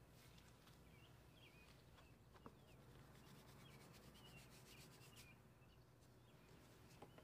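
Near silence: soft rubbing of a dough ball being set down on a flour-dusted wooden board, under faint, repeated small-bird chirping.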